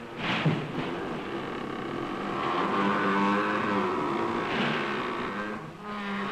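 Wooden sugar-mill wheel creaking and groaning as it turns, in long pitched groans that swell and fade, heard on an old optical film soundtrack.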